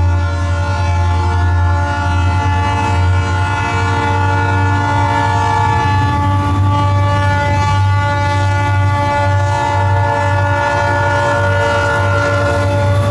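Diesel freight locomotive air horn sounding a long chord, held almost without a break, with its notes shifting a few times. Under it runs the deep, steady rumble of the locomotive.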